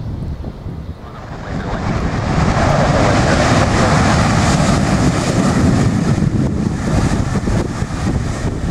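Jet aircraft engine noise swelling from about a second in to a sustained peak as a plane passes close by, easing a little near the end, with gusty wind buffeting the microphone.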